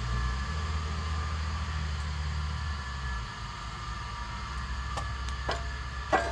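Steady low rumble, with a few short sharp taps near the end as small tools are handled on a steel plate.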